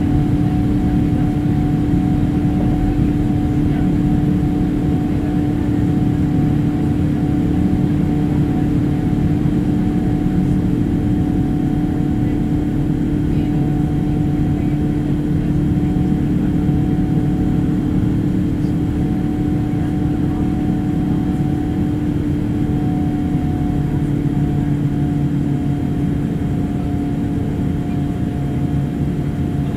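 Boeing 787-8's Rolls-Royce Trent 1000 engines heard from inside the cabin during climb-out after takeoff: a loud, steady drone with a steady hum over a low rumble. In the last few seconds the low hum drops slightly in pitch and level.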